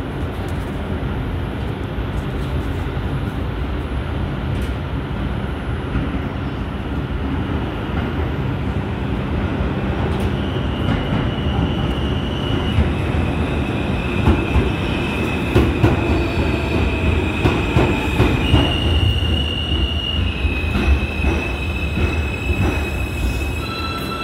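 New York City subway G train pulling into an elevated station: a steady rumble of wheels on rail, with high-pitched brake and wheel squeal setting in about halfway through and rapid clacking over the rail joints as it slows to a stop.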